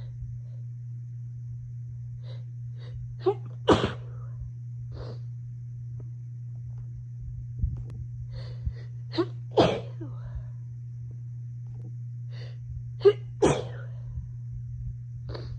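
A person sneezing three times, each sneeze led by a few short, catching in-breaths. The sneezes are set off by dust during housecleaning.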